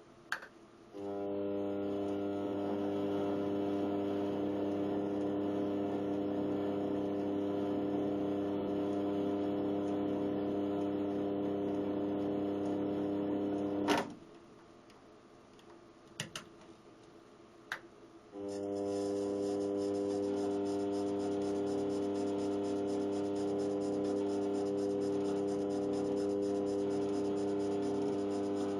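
Lathe motor running with a steady whine as it spins an aluminium workpiece in a fixed steady rest. About 14 s in it stops with a sharp click, a couple of small clicks follow, and it starts again about four seconds later and runs on.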